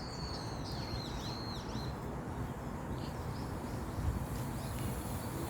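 A small bird calling, a quick series of short high arching notes in the first two seconds, then a few fainter calls, over a steady low background noise.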